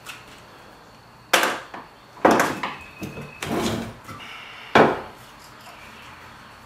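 Lengths of 2x2 pine lumber knocking against each other and the workbench top as they are picked up and set in position: four sharp wooden knocks about a second apart.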